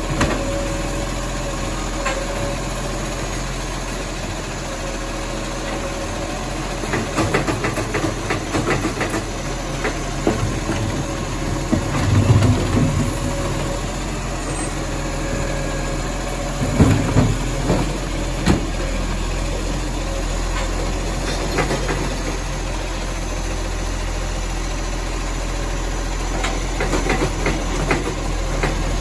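Side-loader garbage truck's diesel engine idling steadily while its automated arm grabs, lifts and tips wheelie bins into the hopper, with several bursts of clattering and thuds as bins are emptied.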